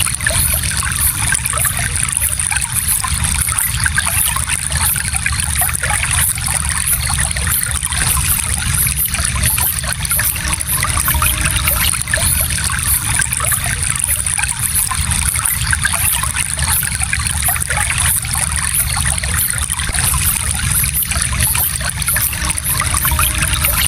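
Gentle stream flowing steadily, water running continuously over its bed.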